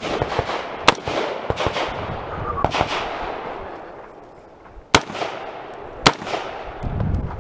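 Semi-automatic AR-style rifle firing single shots: four loud, sharp cracks spread a second or two apart, each with an echoing tail, and a few fainter pops in between.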